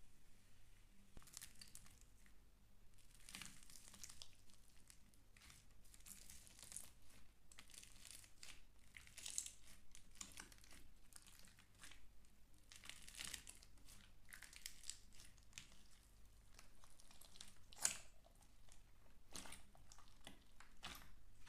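Slime being worked by hand, giving faint, irregular crackling and crinkling, with one sharper snap near the end.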